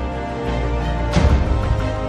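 Background music over the outro, held chords with one sharp hit that rings off a little after halfway.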